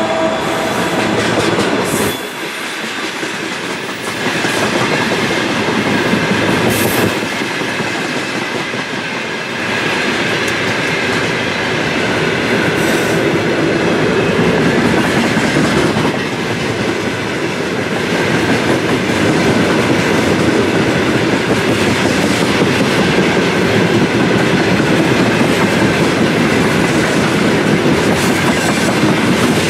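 A freight train of open-top wagons rolls past close by: a steady rumble of wheels with clickety-clack over the rail joints. In the first couple of seconds the drone of a 2TE116 diesel locomotive's engine is heard over it.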